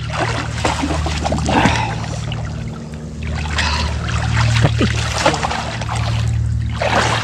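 Water sloshing and splashing irregularly as people wade and move chest-deep through water, over a steady low hum.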